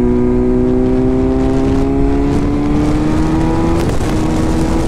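Inline-four sport motorcycle engine pulling steadily under acceleration, its pitch rising slowly through the gear. The steady note breaks off about four seconds in, over a constant low rumble of wind and road noise.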